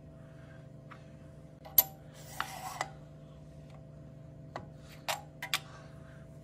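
Metal 1-2-3 setup blocks being set down and slid on an aluminium fixture plate: a sharp metal clack about two seconds in, a short scrape, then a few lighter clinks, over a steady low hum.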